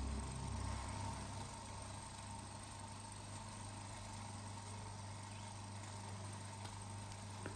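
Low music dying away over the first two seconds, leaving a faint, steady low hum.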